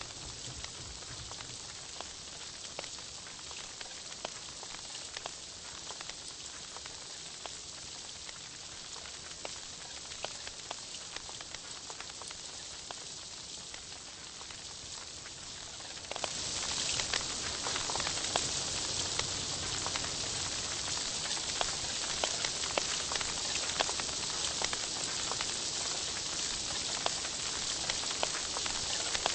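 Meat sizzling on a Korean barbecue tabletop grill: a steady crackling hiss with scattered pops, which gets clearly louder about sixteen seconds in.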